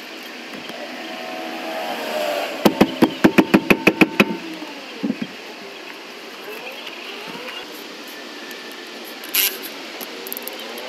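Impact wrench working a lug nut off a car wheel: a short rising whir, then a rapid run of about a dozen evenly spaced metallic knocks lasting about a second and a half, followed by a few lighter knocks.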